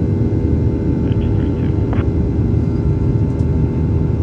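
Cabin noise of a Boeing 737-900ER climbing after takeoff, heard from a window seat beside its CFM56-7B turbofan engine. The engine and airflow make a steady, loud rumble, with a few constant tones humming through it.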